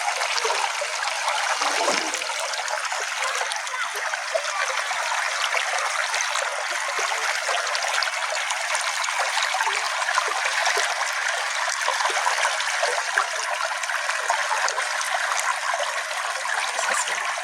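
Small stream flowing steadily: a continuous trickling, babbling rush of water.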